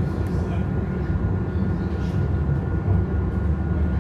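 Pesa Twist 147N low-floor tram heard from inside the passenger saloon while in motion: a steady low rumble of the running gear on the rails, with a faint steady high tone above it.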